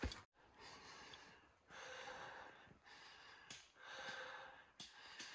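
Faint, hard breathing of a hiker exerting on a steep uphill climb, a breath roughly every second.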